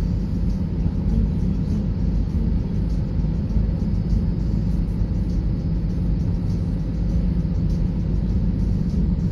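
Steady low rumble of a car's road and engine noise, heard from inside the cabin while driving at road speed.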